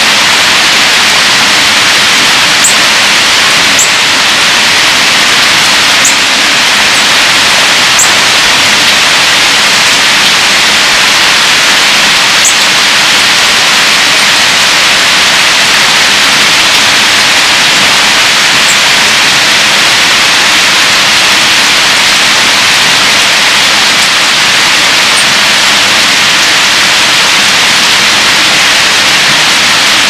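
Heavy rain pouring steadily, a dense even hiss, with a few brief high chirps from birds now and then.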